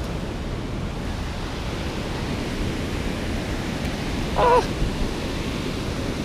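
Steady rush of a shallow creek flowing over stones, with wind buffeting the microphone. About four and a half seconds in, a short high-pitched sound.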